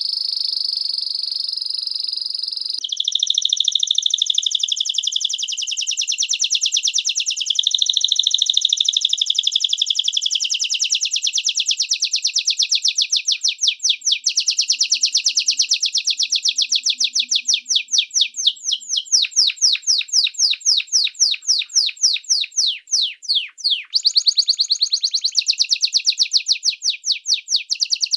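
Canary (Serinus canaria) singing a long, continuous song. It opens on a held high whistle, then runs into fast rolling trills that slow to distinct repeated notes midway. A quick downward-sweeping note comes about three-quarters through, and the song returns to a rapid trill.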